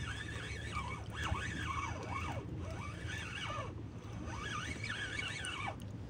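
Ryobi spinning reel being cranked to bring in a hooked fish, with a high wavering sound that rises and falls in short runs over a steady low rumble.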